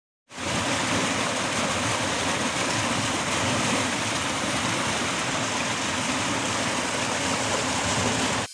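Fast, turbulent water rushing and churning against a brick channel wall, a steady, even rush of white water. It starts abruptly just after the start and cuts off near the end.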